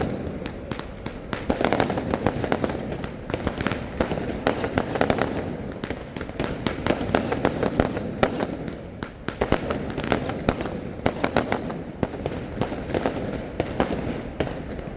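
Fireworks display: a rapid, continuous string of bangs and crackles, many bursts a second overlapping one another.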